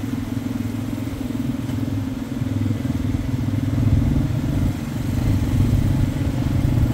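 Motor vehicle engine running steadily, a low drone that swells slightly about halfway through and again near the end.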